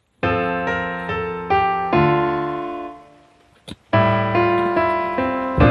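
Music: piano chords struck and left to ring away, one phrase fading out midway and a new one starting about a second later.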